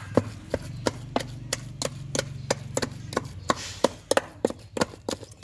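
Wooden pestle pounding ground herring paste for fish cakes in a stainless steel pot, about three steady knocks a second.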